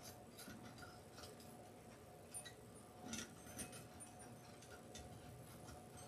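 Near silence, with a few faint clicks and light rustles of hands working a moss-filled wire wreath frame.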